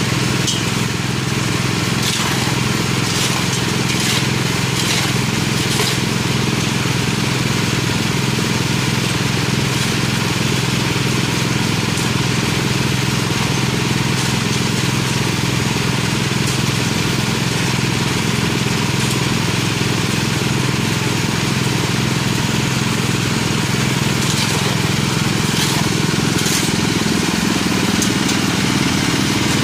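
Small gasoline engine running steadily, driving a gold trommel whose rotating drum tumbles wet gravel and rocks, with water washing through. Sharp clicks of rocks knocking in the drum stand out a few seconds in and again near the end.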